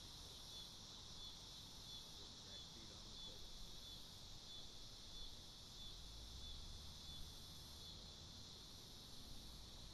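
Faint outdoor ambience: a steady high-pitched chorus of crickets, with a low rumble that grows a little about six seconds in.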